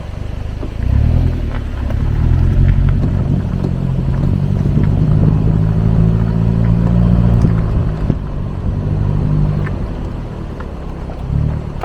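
Suzuki Jimny Sierra's engine running as the car drives, coming on strongly about a second in, holding a steady note, then easing off near the end.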